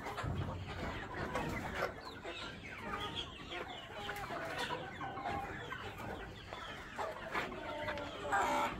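A large flock of Sasso chickens clucking and calling together, many short overlapping calls with no let-up.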